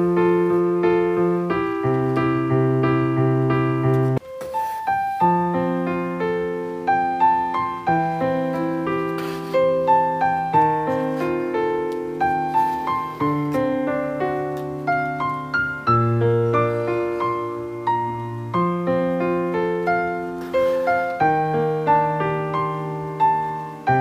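Background piano music: slow, gentle chords over a bass line.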